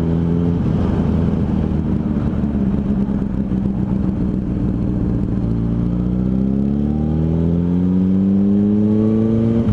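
Honda CBR600RR's inline-four engine running under way. The note turns rougher after the first half-second, then climbs steadily over the last few seconds as the bike accelerates.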